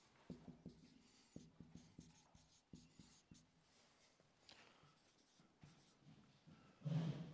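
Dry-erase marker writing on a whiteboard, faint: quick taps and scratches of the tip as letters are written, thickest over the first few seconds and sparser after. Near the end comes one brief, louder low sound.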